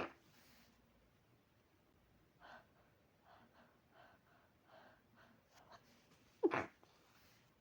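Several faint, short breaths, then a single sharp sneeze about six and a half seconds in, its voiced part falling in pitch.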